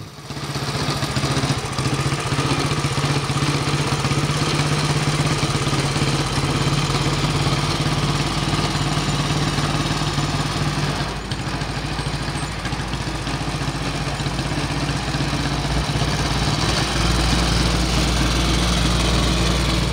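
1948 Royal Enfield J2's single-cylinder engine running as the motorcycle is ridden at low speed, with a steady engine note. A deeper, louder rumble comes in near the end.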